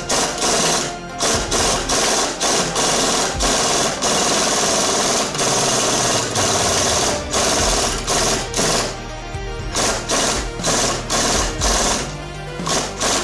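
A power tool run in repeated bursts, starting and stopping every second or so with a longer run in the middle, while working the driveshaft U-joint. Background music plays underneath.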